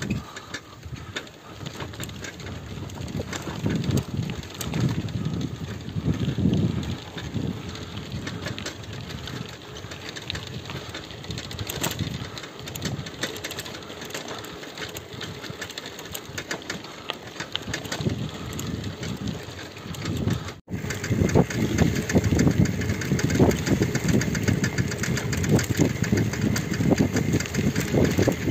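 Bicycle tyres rolling over a gravel and dirt track, a continuous rumble and crunch with rattling from the bike, recorded from the moving bicycle. After a short break about two-thirds of the way through, the rumble is louder.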